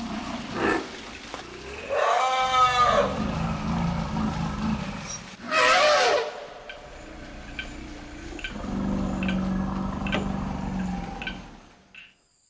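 Elephants trumpeting twice, two loud calls about three seconds apart that each rise then fall in pitch, with lower rumbling calls between and after them. Faint regular ticking, about two a second, sounds in the middle of the stretch.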